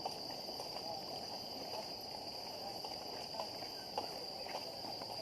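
Insects trilling in one steady high-pitched drone, over low, even background noise with a few faint clicks.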